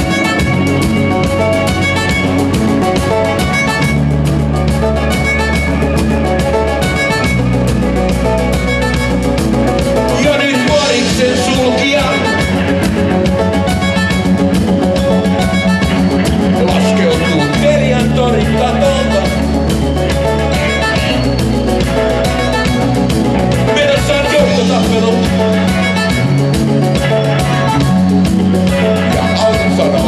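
Live rock band playing: drum kit with a steady beat and electric guitar over a bass line.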